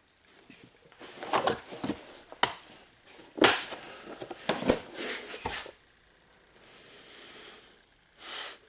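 Hand tools being handled and put down: a run of sharp clicks and knocks with rustling, then a short rustle near the end.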